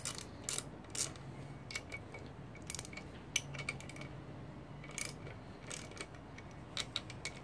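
Socket ratchet clicking in short, irregular runs as the cylinder head bolts of a GY6 scooter engine are loosened one after another.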